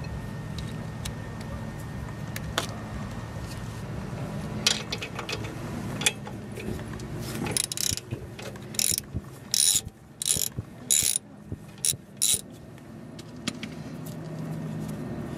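A few tool clicks and clinks, then a ratchet wrench clicking in about six short runs as it backs out a bolt on a brake caliper.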